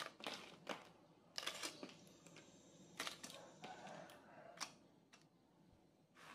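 A scattering of faint, short clicks and light knocks.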